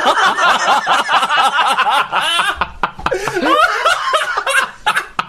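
Several men laughing together, overlapping. The laughter comes in waves and dies down near the end.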